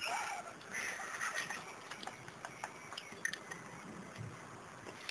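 Small tabletop water fountain trickling while a kitten paws at its falling stream and laps from the basin: splashing in the first second and a half, then a run of small irregular clicks and drips.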